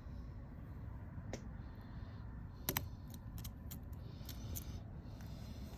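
A few faint, sharp little clicks and taps of small metal tools and parts being handled during a phone repair, scattered over a steady low background hum.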